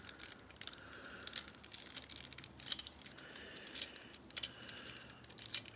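Faint, scattered small clicks and rubbing of plastic toy parts as a Transformers Robots in Disguise Soundwave warrior-class figure is being transformed by hand.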